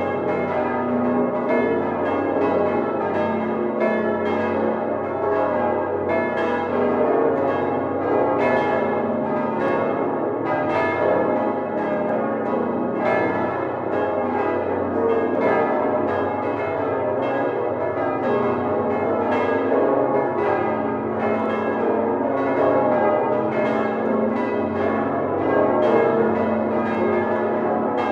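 Full peal of the Domtoren's swinging church bells, all bells rung together by hand by ringers and heard from inside the bell chamber. Dense, overlapping clangs follow one another without a break over a steady low ringing tone.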